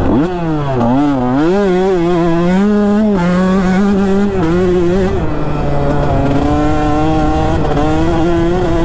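KTM 150 SX two-stroke dirt bike engine under way. Its note dips and climbs over the first two seconds, then runs steady and smooth at part throttle. About five seconds in it steps down to a lower steady note.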